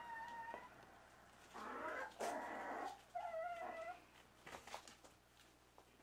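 Young dachshund puppies whimpering: a thin high whine at the start, two short rougher cries about two seconds in, then a wavering whine just after three seconds, followed by a few faint taps.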